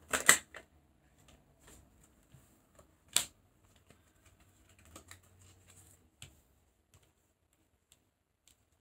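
Tarot cards being handled on a table: a few sharp clicks and taps, the loudest just after the start and about three seconds in, with fainter ticks and quiet between.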